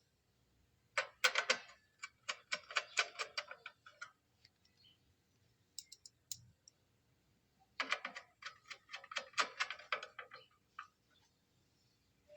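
Two runs of rapid, sharp clicking, one starting about a second in and another near eight seconds in, as a hand tool tightens M5 screws on an automatic wood planer.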